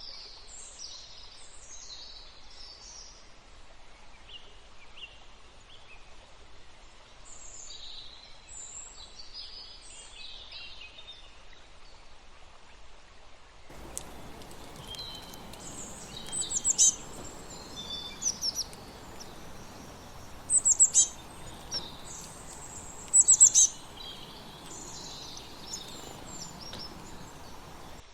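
Small birds chirping and singing in short high-pitched phrases. About halfway through, the background hiss abruptly gets louder, and several loud bursts of sharp chirps follow.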